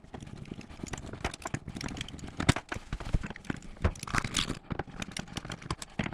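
Irregular clicks, knocks and rattles as a Bosch dishwasher's inner door skin is worked loose and lifted off the door, with the sharpest knocks about two and a half seconds in.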